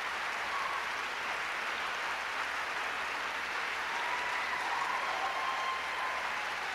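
Audience applauding steadily for a chorus.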